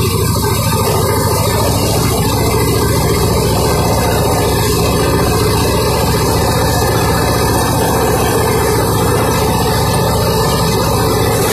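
Vladimir T-25 tractor's two-cylinder air-cooled diesel engine running steadily while the tractor mows, heard from the driver's seat.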